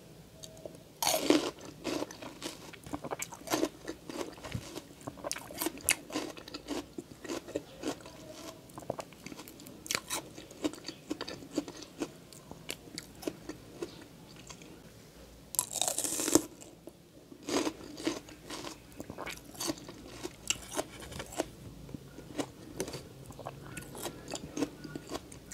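Crisp, juicy bilimbi (kamias) fruit being bitten and chewed close to the microphone. Two louder crunching bites come about a second in and again past the middle, with steady wet chewing between them.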